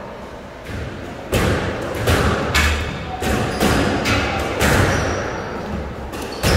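Squash rally: the ball struck by racquets and slapping off the court walls, a string of sharp hits at uneven intervals, each echoing briefly in the enclosed court.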